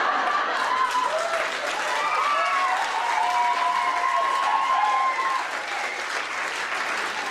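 Audience applauding, with voices calling out over the clapping in the middle.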